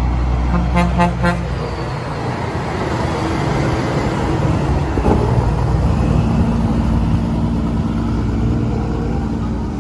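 Truck sound effect: a few short horn toots about a second in, over a truck engine running steadily.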